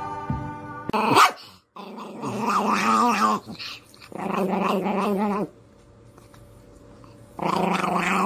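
Small Chihuahua-type dog growling in three drawn-out, wavering stretches of about a second and a half each, after a brief loud noise about a second in.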